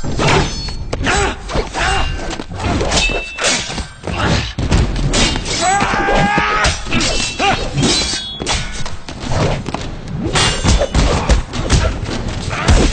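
Fight-scene sound effects: a rapid, dense series of punches, kicks and heavy body thuds. A pained vocal groan comes about six seconds in.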